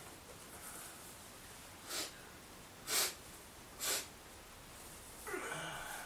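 A man's breathing: three short, sharp breaths through the nose about a second apart, followed near the end by a longer pitched sound.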